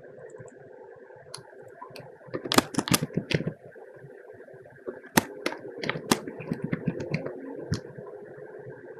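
Typing on a computer keyboard: a quick flurry of keystrokes about two and a half seconds in, then a run of separate taps from about five to eight seconds, over a steady background hum.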